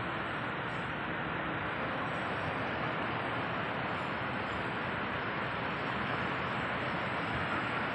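Steady, even rush of road traffic noise, with no distinct passes or events.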